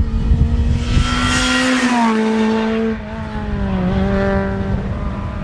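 Rally car passing at speed, its engine held at high revs. The note steps down in pitch a few times, with a burst of tyre and road hiss as it goes by.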